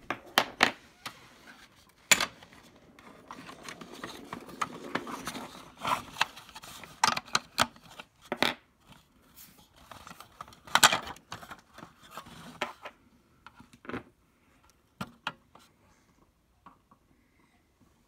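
AA batteries and the plastic battery compartment of a smoke and carbon monoxide alarm being handled: a run of sharp clicks, taps and clatters with rubbing and scraping between them, thinning to a few faint ticks after about thirteen seconds.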